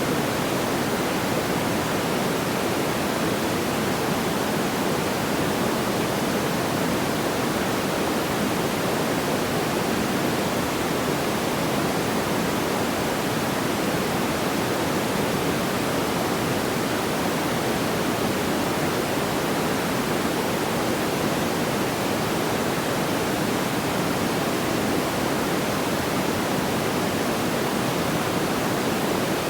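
Steady, even rushing hiss like pink noise, with no crackles or pops.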